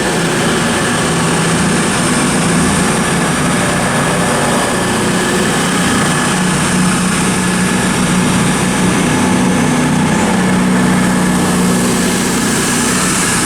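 CrossCountry Class 220 Voyager diesel multiple unit departing, its underfloor diesel engines running steadily under power.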